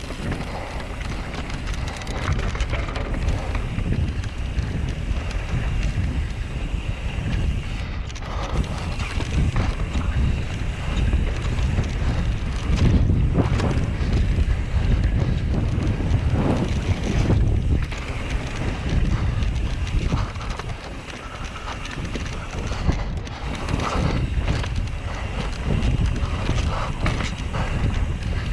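Wind buffeting the microphone of a camera on a mountain bike riding fast down a dirt flow trail, over the rolling noise of the tyres. Now and then there are short knocks and rattles as the bike goes over bumps.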